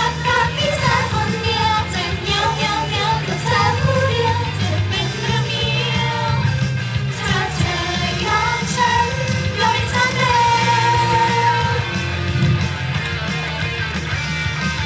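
Female voices singing a pop song live into handheld microphones over an amplified backing track with a heavy bass line.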